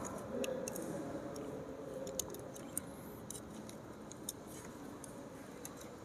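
Faint, scattered small clicks of a screwdriver and wire being worked at the screw terminals of a plastic smoke detector base.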